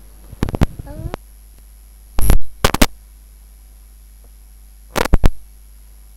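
Sharp knocks and clacks: a few light ones in the first second, two loud ones a little after two seconds in, and a close pair about five seconds in, over a faint steady low hum.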